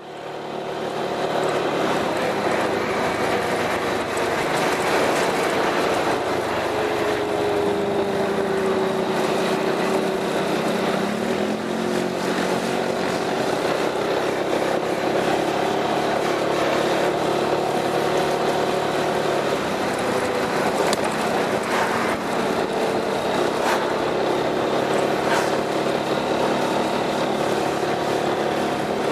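Piaggio MP3 400 scooter's single-cylinder engine running through an Akrapovič aftermarket exhaust. Its note dips and rises in the first dozen seconds, then holds fairly steady.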